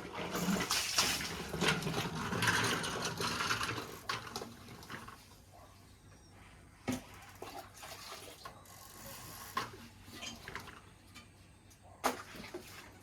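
Water pouring and splashing for the first few seconds, then quieter, with a few sharp knocks.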